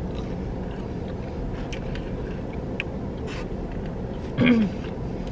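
Steady low hum inside a car cabin, with faint clicks from chewing and handling food. About four and a half seconds in there is a short hummed "mm" from the eater, falling in pitch.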